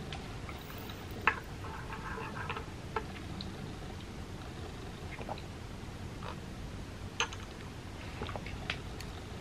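Eating and drinking sounds: sips from a mug and mouth sounds, with a few sharp clicks of the mug and spoon, the loudest about a second in and another about seven seconds in, over a steady low hum.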